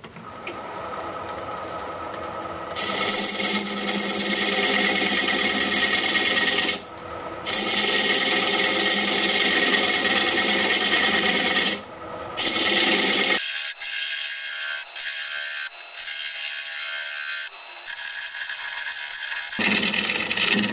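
Wood lathe running while a turning tool shear-scrapes the spinning bowl blank of hard cherry plum wood, giving a loud hiss of cutting in long passes of a few seconds with short breaks between them. The cutting goes lighter for a stretch in the second half and picks up again near the end.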